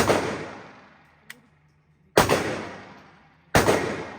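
Three gunshots, each with a long echoing tail that fades over more than a second: one at the start, one about two seconds in, and one about a second and a half after that. A small click comes between the first two.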